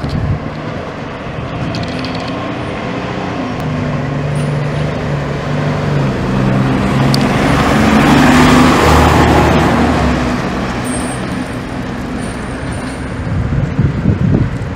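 Fire engine's diesel engine running as the pumper drives past close by, getting louder to a peak about eight seconds in and then fading as it pulls away.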